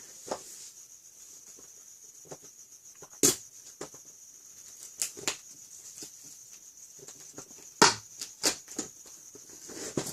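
A cardboard shipping box being cut open and unpacked: scattered sharp crackles and knocks of cardboard and packing material, the loudest about three seconds in and again near the end, over a faint steady high whine.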